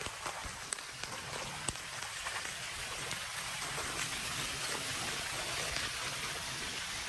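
Steady rain falling on wet pavement, with a few sharp drops standing out.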